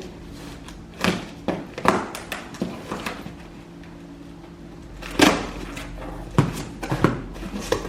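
Cardboard shipping box being handled and opened: a string of sharp knocks and thuds, the loudest about five seconds in, over a faint steady low hum.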